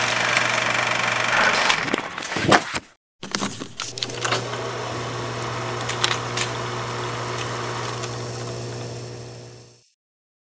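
Old film projector sound effect: a steady mechanical whir with a low hum and scattered clicks and crackle. It cuts out briefly about three seconds in, starts again, and fades out near the end.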